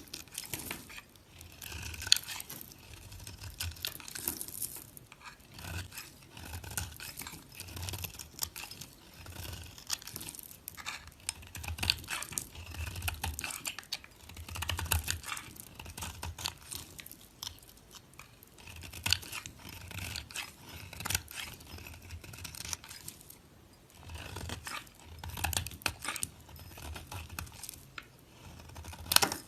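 Dry soap crunching and crackling as it is cut: a continuous run of crisp crackles with soft low thuds.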